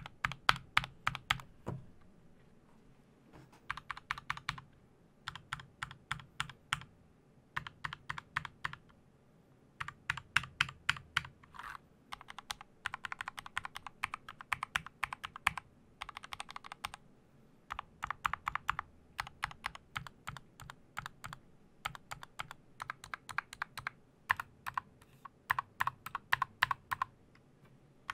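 Mechanical keyboard with linear switches being typed on: quick runs of keystrokes in bursts of a second or two, broken by short pauses.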